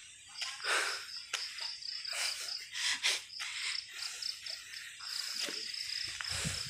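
Insects in the surrounding vegetation chirring in a steady, high-pitched pulsing trill. Several brief scuffing or rustling noises come through over it.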